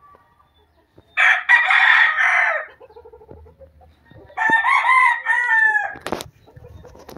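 Claret gamecock rooster crowing twice, each crow about a second and a half long and a few seconds apart; the second crow rises and falls in pitch more clearly than the first.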